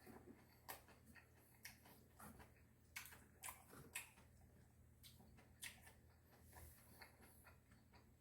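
Faint, irregular clicks and small wet noises of someone eating Spam and rice wraps: chewing and utensils tapping, a few ticks a second at most, over a low steady hum.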